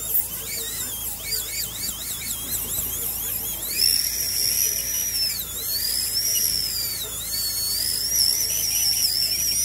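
High-speed dental handpiece whining as its bur drills away the bone over a dog's fractured upper canine before extraction. The pitch wavers quickly for the first few seconds, then holds higher, with a couple of brief dips as the bur bites into the bone.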